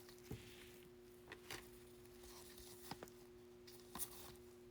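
Near silence: room tone with a faint steady hum and a few soft, scattered clicks.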